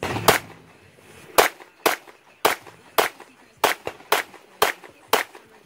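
A .22 semi-automatic pistol fired nine times in steady slow fire, about two shots a second.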